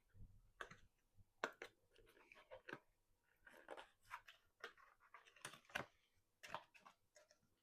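Faint, scattered taps and crinkles of cardboard and packaging being handled as the last advent calendar box is opened and its product taken out.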